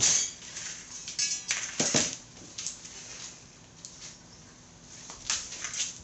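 Scraping, rustling and light clinks from hands working zip ties around a motorcycle tire, with a short rapid ratcheting about a second in as a zip tie is pulled tight.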